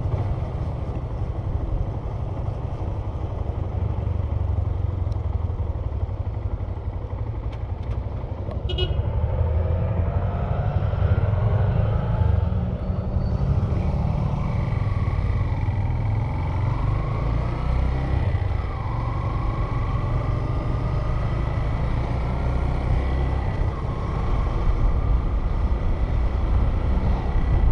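A car's engine and tyre noise while driving, a steady low rumble, with the engine note rising a couple of times through the middle as the car speeds up.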